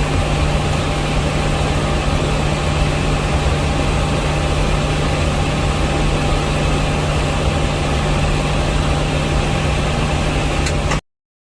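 Steady drone inside a Boeing 737 MAX 8 cockpit, engine and air-conditioning noise with a strong low hum and a faint steady whine above it. It cuts off suddenly near the end.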